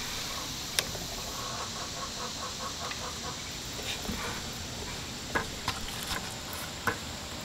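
Light handling noises of slaughtering a quail in a plastic kill cone: a sharp click just under a second in, a short run of soft rapid tapping, and a few more scattered clicks over steady outdoor hiss.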